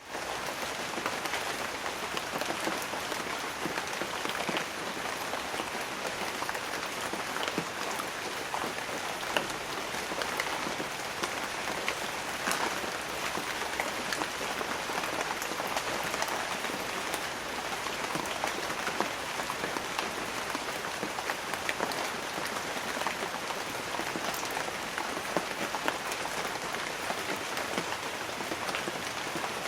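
Light rain falling steadily on banana leaves: an even hiss of rain dotted with many separate drops striking the leaves. No thunder is heard.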